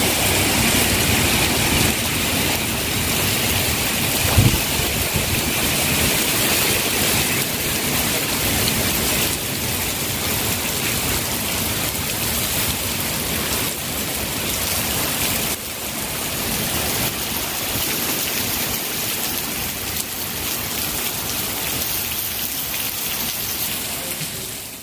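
Heavy typhoon rain pouring steadily, a dense hiss, with one brief thump about four seconds in. It fades out at the very end.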